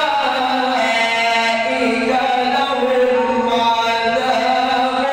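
Man reciting the Quran in the melodic tajweed style, drawing out one long unbroken phrase that rises and falls slowly in pitch.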